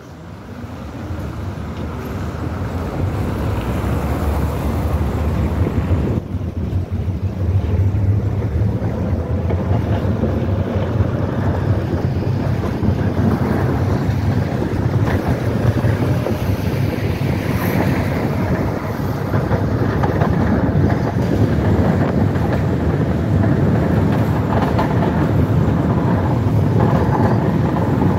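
Tatra T6B5SU tram gathering speed and running along the track, its wheel and running noise mixed with wind rushing through an open window vent. The noise swells over the first few seconds, then holds steady.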